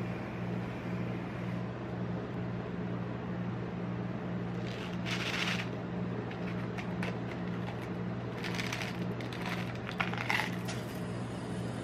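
Small candy-coated sweets rattling and clicking inside a clear plastic jar as it is tipped and shaken out into a hand, in a burst about five seconds in and again from about eight and a half seconds, over a steady low hum.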